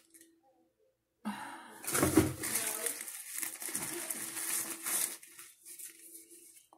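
Plastic wrapping crinkling and rustling as a nail dryer is slid out of its cardboard box and unwrapped, starting about a second in, with a soft thump about two seconds in. The rustling fades to a few light crinkles near the end.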